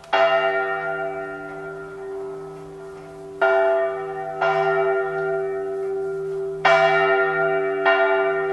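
Large church bell tolling slowly: three heavy strikes about three seconds apart, each followed about a second later by a lighter one, the bell ringing on between strikes.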